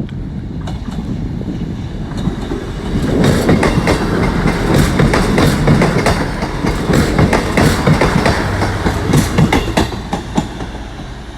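A Class 158 diesel multiple unit passing close by, its wheels clattering over rail joints with a low rumble. The clatter builds about three seconds in and eases near the end.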